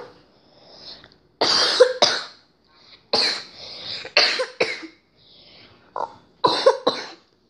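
A person coughing in several short bouts, a string of harsh coughs spread over a few seconds: a persistent cough.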